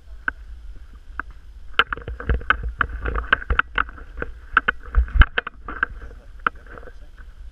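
A rapid, irregular run of sharp clicks and knocks, densest in the middle, over a low rumble of wind on the microphone; no engine is running.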